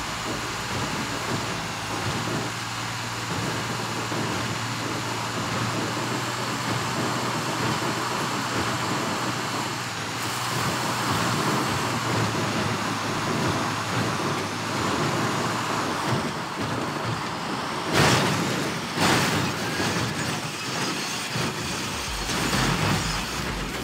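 A motor vehicle running as it drives down a steep, rough track, its engine humming under a steady rumble of rolling and body noise. Near the end come two sharp knocks about a second apart.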